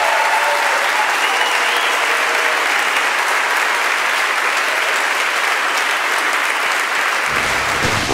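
Audience applauding steadily, with a few whistles in the first two seconds.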